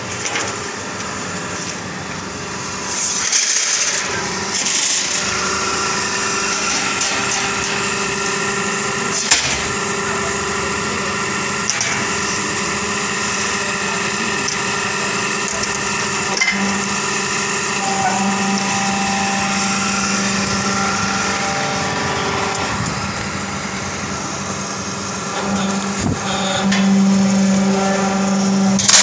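Hydraulic sheet-metal shearing machine running: its power pack gives a steady, multi-toned motor-and-pump hum, and a few sharp knocks sound during the run. The low hum grows stronger in the last third.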